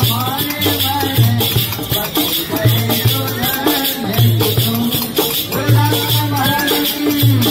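A voice singing a melody over a dholak beaten in a steady rhythm, with rattling percussion keeping time.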